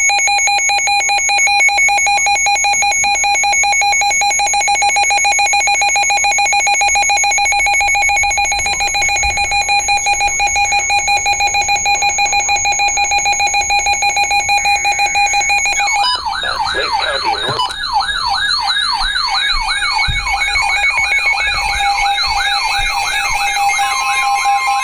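Electronic alarm tones in the style of an Emergency Alert System alert. A steady high tone begins pulsing rapidly about eight seconds in. About sixteen seconds in, a fast warbling siren tone joins and carries on over a steady tone.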